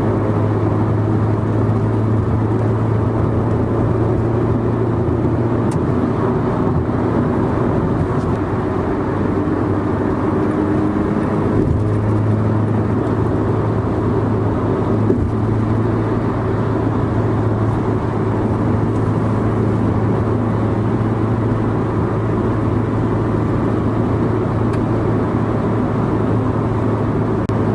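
Mazda 3 with a Spintech Super ProStreet 9000 muffler, heard from inside the cabin while cruising at freeway speed (about 120 km/h): a steady low exhaust drone over tyre and road noise.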